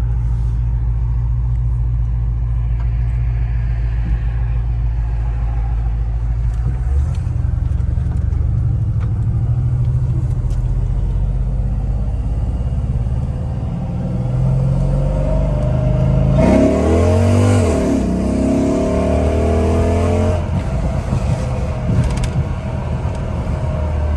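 2007 Dodge SRT8's 6.1-litre Hemi V8 running at low revs, then revving hard in a first-gear pull past the middle, its pitch climbing and falling before easing back to a steady run.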